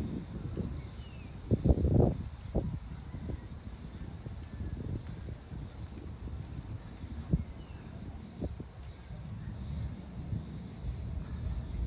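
Steady high-pitched insect chorus, with gusts of wind buffeting the microphone in low rumbles, strongest about two seconds in.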